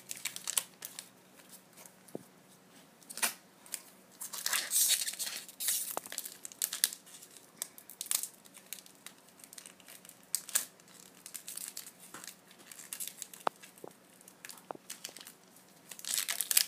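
Foil Magic: The Gathering booster-pack wrapper crinkling and tearing, with playing cards being handled and flicked through, in scattered short rustles and clicks. Denser bursts of crinkling come about five seconds in and near the end.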